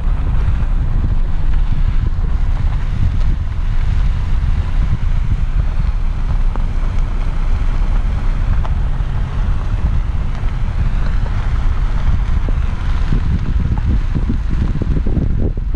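Wind buffeting the microphone: a loud, uneven low rumble with a fainter hiss above it.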